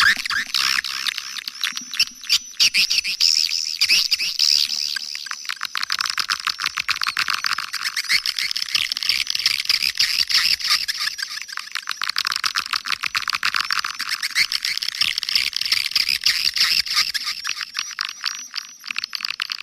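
Dense chorus of swiftlets twittering, many rapid high chirps overlapping without a break. It is a swiftlet-house lure call (suara panggil), with no low end to the sound.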